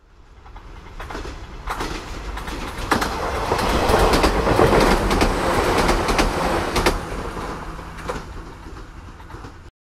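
A train passing: rumble and clickety-clack of wheels over rail joints, swelling to a peak about halfway and then fading, before cutting off abruptly near the end.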